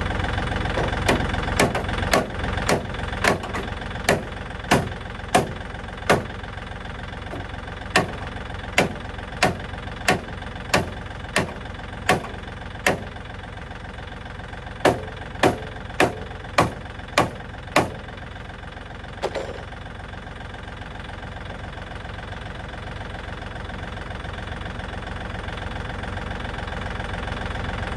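Tractor engine idling steadily. Over it come runs of sharp knocks, evenly spaced about two-thirds of a second apart, that stop about 18 seconds in.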